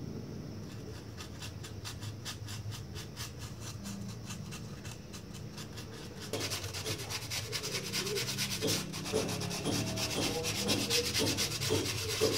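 Rapid back-and-forth rubbing strokes, like hand sanding. About six seconds in they grow louder and are joined by short squeaks.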